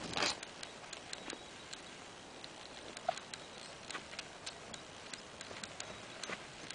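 Horse's hooves striking hard, dry dirt at a trot: a run of short, sharp clicks at uneven spacing, a few each second. A brief rush of noise at the very start is the loudest moment.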